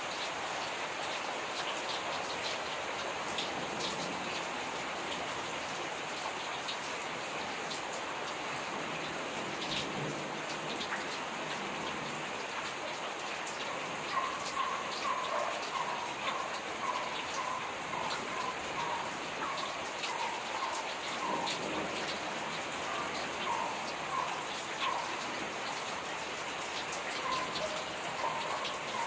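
Steady rain falling, with scattered sharp drop ticks. About fourteen seconds in, an animal starts calling, a short note repeated about twice a second, and keeps on to the end.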